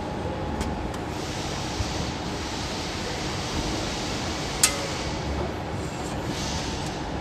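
Steady hum and hiss of a CNC hydraulic press brake's hydraulic system running, with one sharp click about four and a half seconds in.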